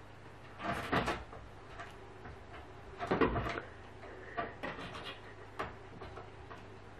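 Two short, noisy bumps, one about a second in and a louder one about three seconds in, followed by a few light knocks.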